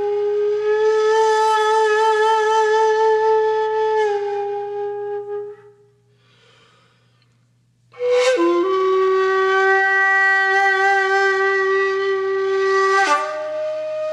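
A solo flute-like wind instrument playing long held notes as background music. One long note fades away about five seconds in and is followed by a short silence. Near the end of the first half a new note starts sharply with a quick dip in pitch, holds steady, and then breaks to a different note shortly before the end.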